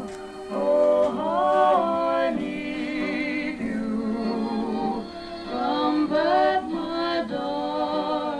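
A 78 rpm record playing on an Arvin solid-state portable record player, heard through its built-in speakers: a sung vocal with vibrato over accompaniment, with very little bass.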